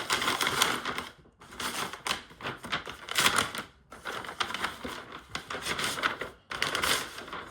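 Plastic packaging rustling and crinkling as a package is handled and opened, in several bursts with short pauses between them.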